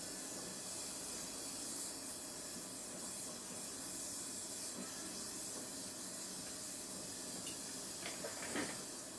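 Welding torch hissing steadily while joining a steel bicycle frame's seat lug, with a couple of brief scrapes or clinks near the end.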